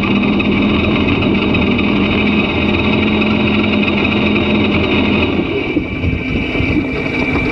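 Jet ski engine running hard at high speed, a steady high-revving note with water and wind noise; about five and a half seconds in the note drops slightly as the throttle eases.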